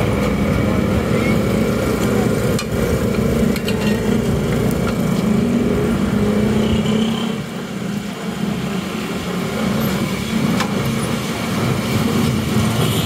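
Street traffic: a vehicle engine running steadily close by, easing off in level about halfway through, with a few light clicks.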